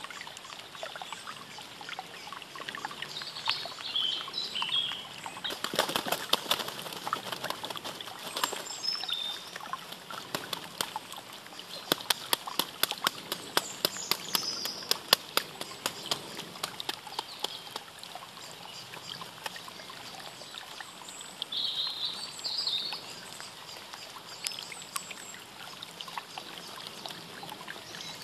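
Eurasian sparrowhawk beating its wings in dry leaf litter over its collared dove prey: a run of sharp flapping rustles, briefly around six seconds in and then several seconds of rapid flaps in the middle. Small birds chirp twice over a steady background hiss.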